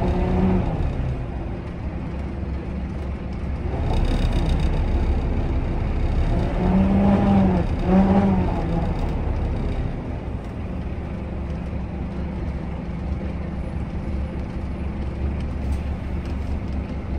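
Scania K310IB bus with its Scania DC9 engine and ZF Ecomat automatic gearbox running under way, a steady low rumble heard from inside the bus. Two short tones that rise and fall sound about halfway through.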